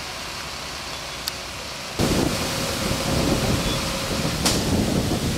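Outdoor background noise, then, after a cut about two seconds in, a louder, uneven low rumble of wind buffeting the microphone in a storm.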